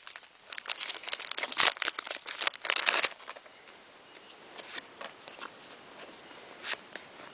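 A foil booster-pack wrapper crinkling as it is torn open, dense for the first three seconds, then quieter rustles and small clicks as the cards are handled.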